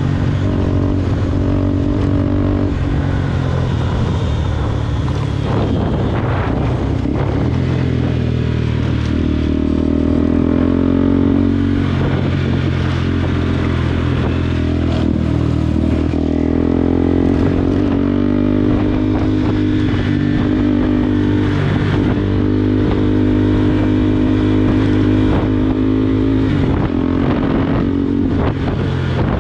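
Motorcycle engine running at steady riding speed, its note shifting a few times with throttle or gear changes, over steady wind noise on the microphone.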